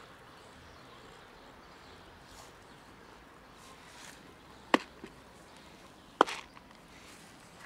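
Two short, sharp clicks about a second and a half apart, the first a little past halfway through, over a quiet background.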